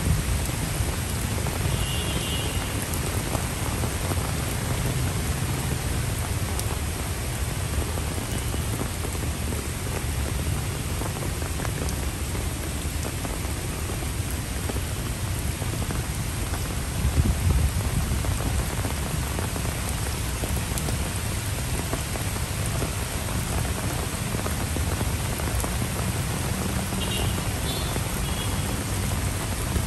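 Steady rain falling on paved paths, puddles and foliage, an even hiss with a deeper rumble underneath.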